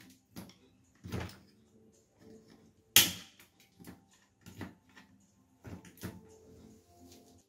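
Small screwdriver prying an LED circuit strip out of a plastic third-brake-light housing: irregular clicks, snaps and light scraping, with the sharpest snap about three seconds in.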